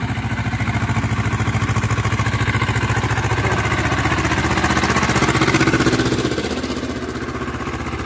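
Swaraj tractor's diesel engine running steadily under throttle while pulling a suhaga levelling plank over ploughed soil. It grows louder as the tractor passes close about five seconds in, then eases off.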